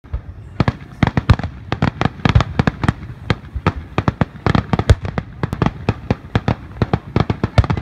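Aerial fireworks shells bursting in a rapid, irregular barrage of sharp bangs, several a second, with no letup.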